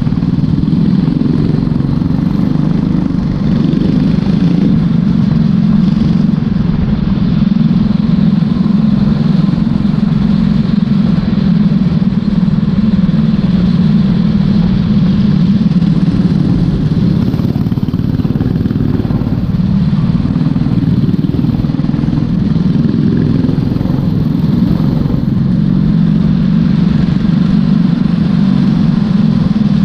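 Kart engine at race speed, heard from on board: a loud, steady engine note that sags briefly as the throttle comes off, about 19 seconds in, then climbs again, with other karts' engines mixed in.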